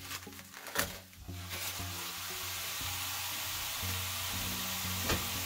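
Raw ground beef set down in a pan preheated on medium heat: a couple of soft knocks as the blocks go in, then the meat starts sizzling steadily.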